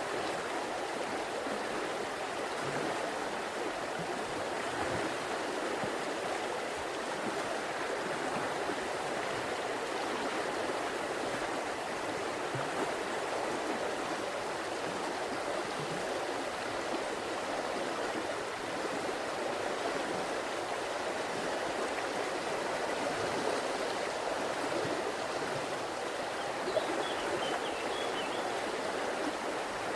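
River water flowing over rocks, a steady, even rushing and babbling.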